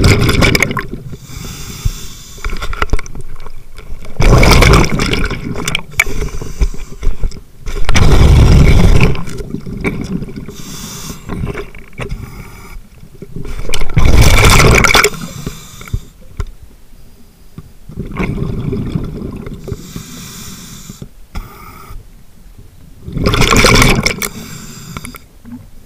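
Scuba diver breathing through a regulator, heard up close at the mask: a quieter hiss on each inhale and a loud, low rush of exhaled bubbles every several seconds.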